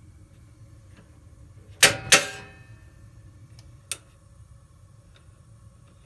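Gas range's spark igniter snapping, two loud sharp clicks close together about two seconds in, with a few faint ticks around them, while the front burner fails to light.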